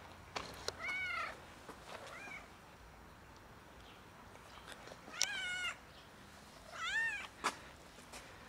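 Tabby-and-white stray cat meowing four times, short calls that rise and fall in pitch; the third wavers and the last two are the loudest.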